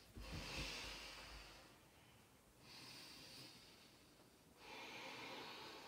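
A woman breathing slowly and quietly: three long, airy breaths with short pauses between them.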